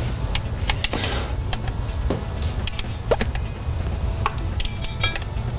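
Torque ratchet clicking on transmission pan bolts: scattered single clicks, then a quick run of clicks near the end, over a steady low hum.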